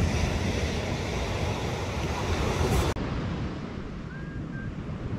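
Small waves breaking and washing on a pebble beach, with wind buffeting the microphone. About three seconds in the sound cuts abruptly to a quieter, duller stretch of surf.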